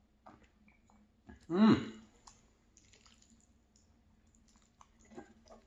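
A short voiced sound from a man's throat about a second and a half in, rising and then falling in pitch, just after he swallows a drink. Around it, soft clicks and light scraping as a fork twirls linguine in a pan.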